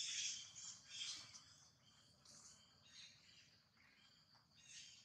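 Faint outdoor ambience of high bird chirps and insect buzzing, a little louder in the first second and again near the end.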